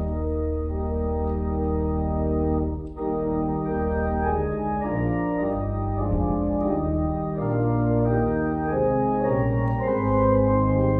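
Church organ playing a hymn tune in sustained chords, with a short break between phrases about three seconds in.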